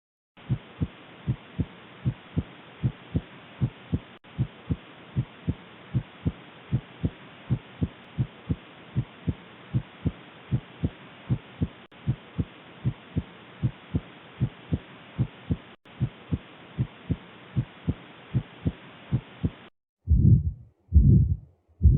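Heart sounds as heard through a stethoscope: a steady lub-dub, a little over one beat a second, over a faint hiss. About 20 seconds in, a different, louder recording starts, with longer, drawn-out beats typical of a heart murmur.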